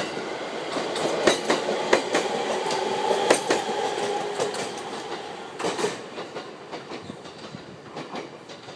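JR East 701 series electric train pulling out and accelerating away: wheels clicking over rail joints, with a steady whine during the first few seconds. The sound fades as the train recedes.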